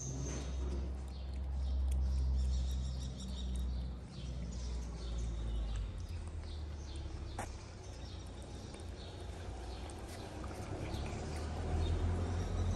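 A cat eating wet cat food from a plastic tray close to the microphone: a run of small wet chewing and smacking clicks, over a steady low rumble.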